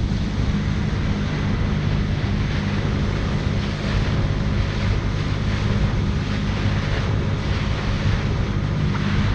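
Jet ski engine running steadily under way, its low hum mixed with rushing water and wind on the microphone.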